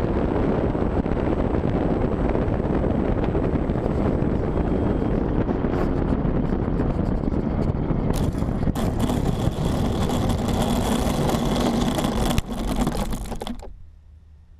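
Steady rushing noise of wind and the running electric motor and propeller, picked up by a camera mounted on a model airplane. It turns hissier about eight seconds in, gives a sharp knock about twelve seconds in, then fades away.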